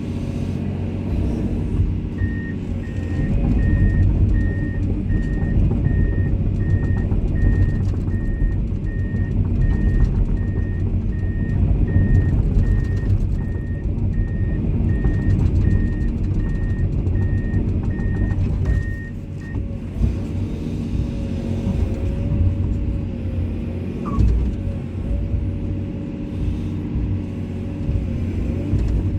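Komatsu excavator's diesel engine running under load, with its alarm beeping steadily at a regular rate from about two seconds in until about two-thirds of the way through, the travel alarm that sounds while the machine moves on its tracks.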